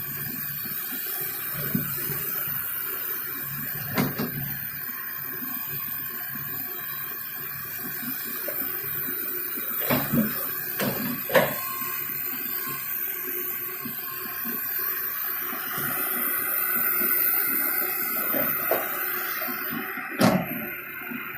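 Komatsu excavator running steadily during land clearing, with several short sharp knocks and cracks, the loudest about ten and eleven seconds in and near the end.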